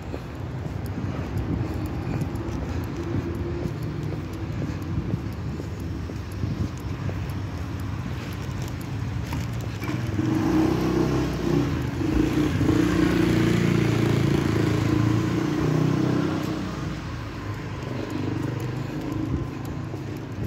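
Street noise with a motor vehicle's engine passing, growing louder to a peak about halfway through and then fading.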